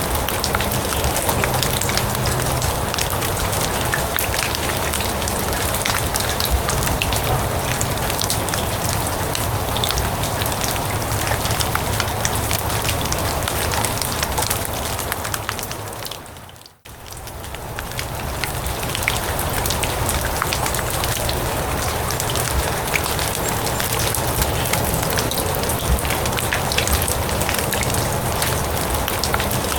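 Steady rain falling on grass, a dense even patter of many small drops. About 17 seconds in it fades down almost to silence for a moment and fades straight back up.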